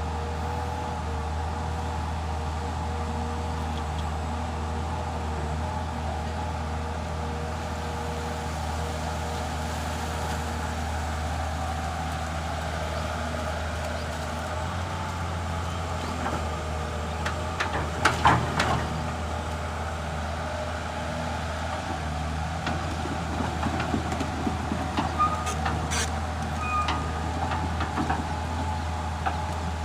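Komatsu PC210 hydraulic excavator's diesel engine running steadily, with a cluster of sharp clanks about eighteen seconds in and a spell of irregular knocks and rattles near the end.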